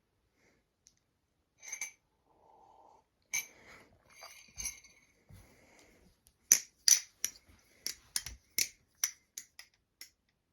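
Balisong (butterfly knife) being flipped: the metal handles and blade clack and clink against each other, a few scattered clicks at first, then a quick run of about three sharp clacks a second in the second half.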